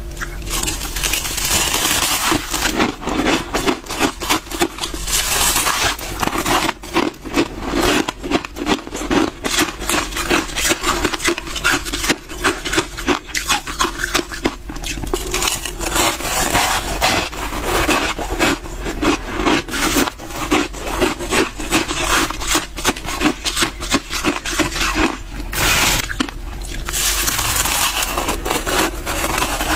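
Soft frost crunching up close in fast, irregular crunches and scrapes, over a steady low hum.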